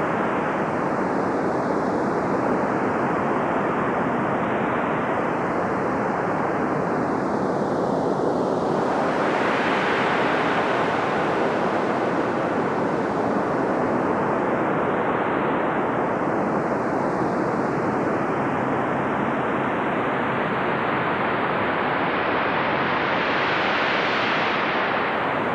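A noisy synthesizer pad preset from AAS Ultra Pads on the VA-3 synth, a steady wind- or surf-like hiss whose brightness slowly rises and falls, brightening suddenly about nine seconds in and brightest just before the end.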